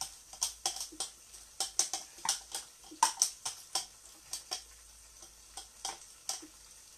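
Spoon clinking and scraping against a pan or bowl: a run of sharp, irregular clicks, about three a second, loudest around the middle.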